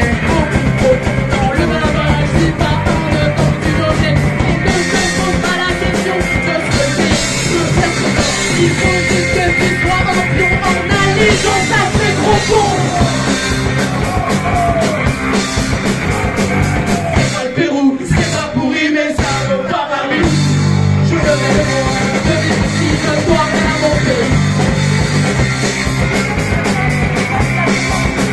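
Punk rock band playing live: electric guitar, drum kit and shouted vocals into a microphone. The band thins out in a short break about eighteen seconds in, then comes back in at full strength.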